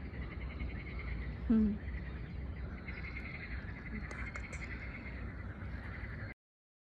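A chorus of frogs croaking steadily, with one louder, lower call about a second and a half in. The sound cuts off abruptly near the end.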